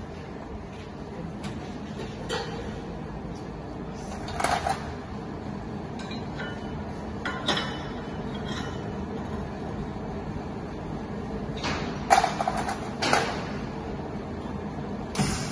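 Short knocks and clanks of a welder handling a welded steel plate and his gear, about six of them, the loudest about twelve seconds in, over a steady workshop hum.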